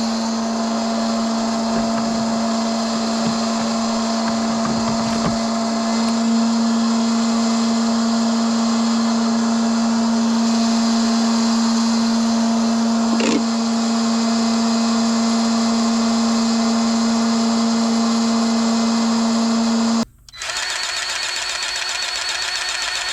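Tractor and pull-type forage chopper running, a steady loud whine with a strong high hum. About 20 seconds in it cuts off abruptly and a different steady machine sound takes over.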